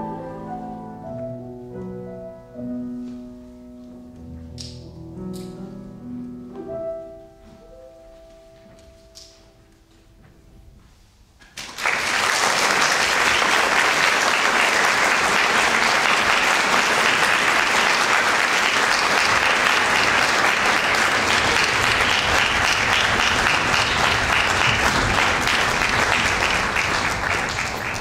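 A girls' choir with piano holds its final notes, which die away over about seven seconds into a few seconds of hush. About twelve seconds in, an audience breaks into loud, steady applause that tails off near the end.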